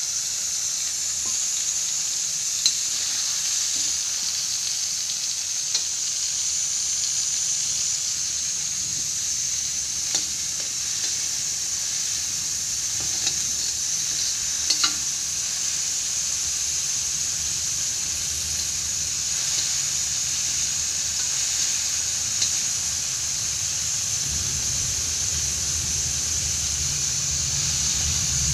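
Onions and green chillies in oil and wet masala sizzling steadily in a kadhai, stirred with a perforated steel ladle that gives a few brief clicks against the pan. A low hum comes in near the end.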